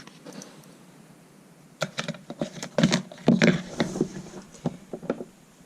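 Light clicks, taps and rustles of phone box packaging and accessories being handled on a table, in an irregular run that starts about two seconds in.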